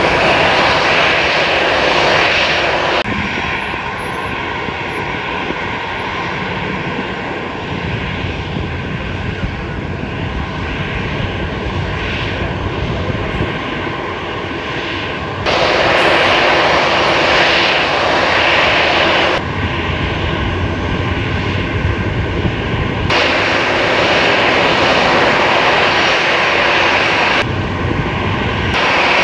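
Jet engines of a Himalaya Airlines Airbus A320 running at low power as the airliner taxis, a steady rushing engine noise that jumps abruptly in level and tone several times.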